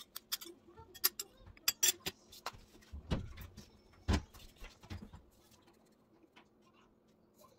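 Kitchen prep at a ceramic bowl as chopped onion is added to flour: a quick run of small clicks and taps, then a few duller knocks about three to five seconds in, and little after.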